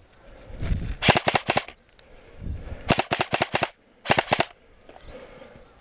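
Airsoft M4-style electric rifle firing three short bursts of rapid shots. The first comes about a second in, the second about three seconds in and the last just after four seconds, each burst a handful of sharp clacks.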